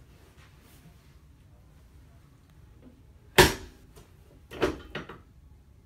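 Sharp knocks from a chiropractic adjustment on a treatment table: one loud one about three and a half seconds in, then two lighter ones about a second later.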